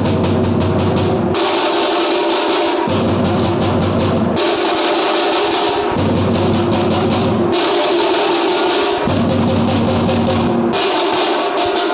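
Drum-led music, loud and dense, switching about every one and a half seconds between a deep, bass-heavy beat and a bright, cymbal-like high section.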